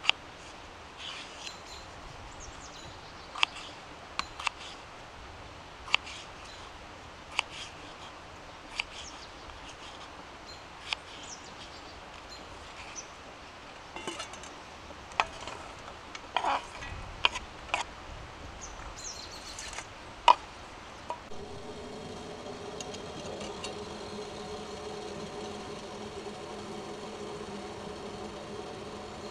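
Knife cutting a potato on a wooden board: sharp single knocks every second or so, then a quicker run of knocks and clatter as the pieces go toward a steel frying pan. About two-thirds of the way in this gives way to a steady buzzing hum from a steel kettle heating on a woodstove, steam rising from it.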